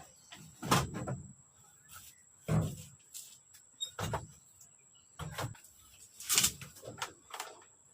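A series of about six separate knocks and thumps, a second or so apart, with a faint steady high whine underneath.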